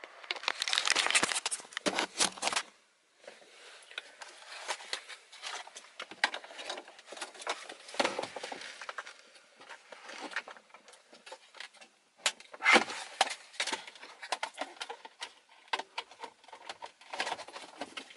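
Plastic interior trim and shifter parts being handled and pressed into place: irregular clicks, rattles and rustling, with a louder clatter a second or two in and again about thirteen seconds in.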